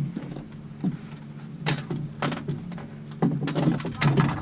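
Several knocks and rattles of gear or a catch moving about on a boat deck, the last cluster the loudest near the end, over a steady low hum from the boat's motor.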